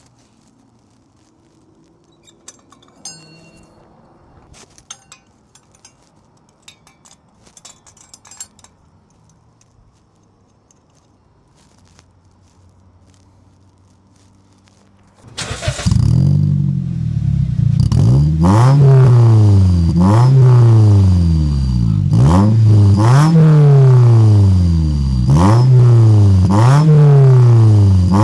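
Faint clicking and rattling, then a Toyota Corolla's engine comes in loudly about halfway through and is revved over and over, the pitch climbing and dropping six or seven times, with a large turbo whistle fitted to its aftermarket exhaust tip. The whistle makes only a little difference to the exhaust note.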